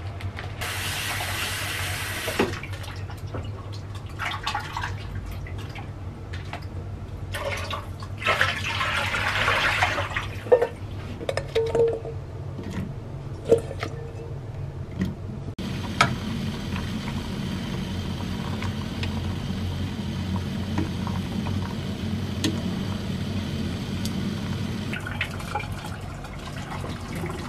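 Water from a kitchen tap runs into a stainless steel bowl in two short bursts as okra is rinsed, with small clinks in between. From about halfway there is a steady hiss as the water in a small enamel pan heats on the hob to blanch the okra. Near the end the water is poured from the pan into the sink.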